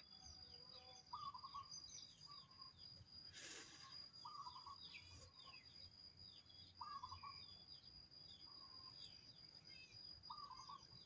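Faint bird chirps, with a short call repeated every couple of seconds, over a steady high-pitched tone. There is a brief hiss about three and a half seconds in.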